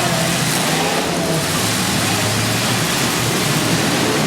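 Demolition derby cars' engines running and revving over a steady, dense wash of noise.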